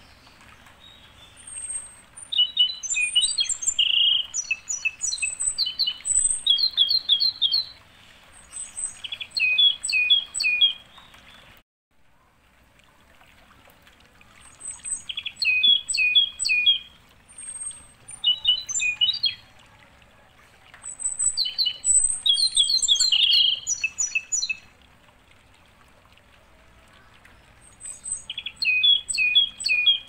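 Songbirds singing: bursts of quick, high chirping phrases and trills, a few seconds at a time with short pauses between, over a faint steady background hiss. The sound cuts out abruptly for a moment about twelve seconds in.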